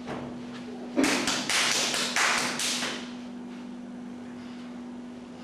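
About a second in, a quick run of about seven sharp smacks, roughly four a second, lasting about two seconds, over a steady electrical hum.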